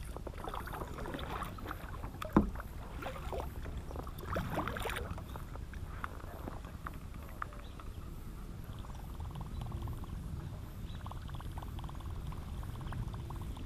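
Fishing kayak on the water: a steady low rumble with water moving against the hull and the small clicks and noises of the angler's reel and tackle being handled. There is one sharp knock about two and a half seconds in.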